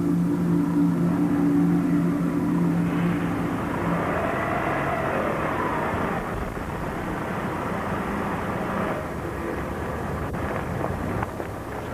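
A vehicle's engine running, with a steady hum for the first few seconds that then gives way to a rougher, shifting noise, and a few sharp clicks near the end.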